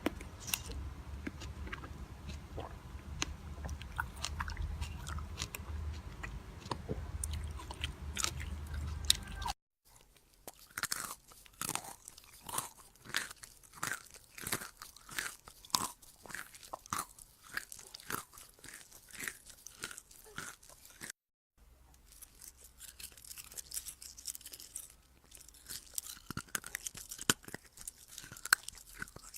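Close-miked chewing of crisp, crunchy food: sharp crunches and bites. The sound changes twice, as between separate clips, and in the middle stretch the crunches come regularly, about two a second.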